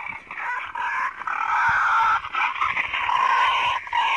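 Wild boar squealing in a run of long, high calls broken by short gaps: a pig feeding call that draws other boars to food.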